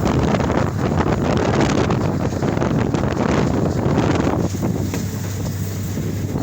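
Wind buffeting the microphone: a loud, uneven rush of noise that swells and eases, heaviest in the low range.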